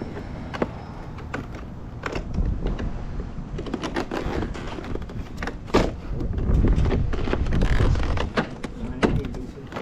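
Scattered knocks, clicks and plastic clatter of vinyl siding and a corner post being worked and pushed into place, with one sharp knock near the middle and a low rumble for a second or two after it.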